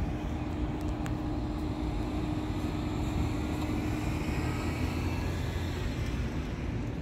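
Motor vehicle engine running: a steady low rumble with a hum that fades out about five seconds in.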